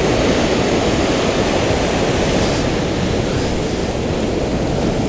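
Ocean surf breaking and washing up over a sandy beach, a steady rushing noise.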